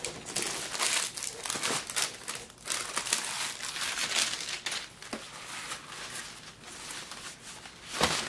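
Clear plastic wrapping crinkling and rustling in irregular bursts as a photography umbrella in its plastic sleeve is handled and pulled out of its box.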